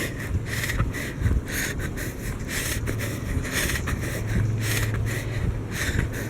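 Footsteps of a person walking briskly on a trail, about two steps a second, over a low steady rumble.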